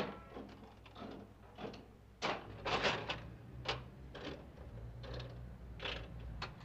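Mechanical ten-cent slot machine being played: the lever is pulled and the mechanism gives a string of separate clicks and clunks as the reels turn and stop, over a low steady hum.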